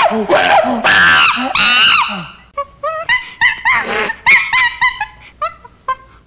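Monkeys calling: a run of loud, rhythmic screaming calls for the first two and a half seconds, then quicker, thinner squeaks and chirps.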